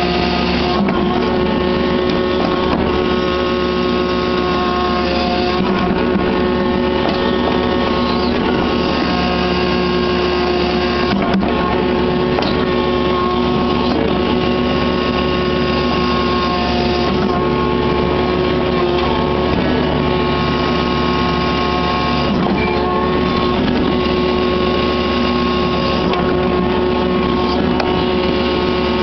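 Kubota KX61-3 mini excavator's diesel engine running at a steady speed while the hydraulics work the boom and grading bucket, heard close up from the operator's seat.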